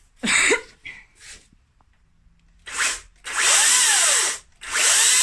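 Makita DUC400ZB twin-battery cordless chainsaw run in trigger pulls: a brief blip near the middle, then a run of about a second and, after a short pause, a longer run, each winding up and coasting down. A short sharp sound comes just after the start.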